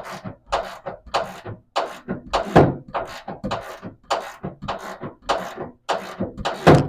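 Hip-hop beat with sharp drum hits about twice a second, keeping a steady rhythm.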